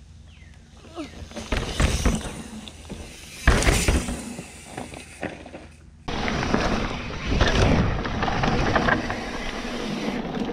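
A mountain bike rolling down a rocky trail and passing close by, its tyres crunching and knocking over rock, loudest about two and three and a half seconds in. From about six seconds in, a steady rush of wind and tyre noise on a handlebar-mounted camera as the bike rides a dirt trail.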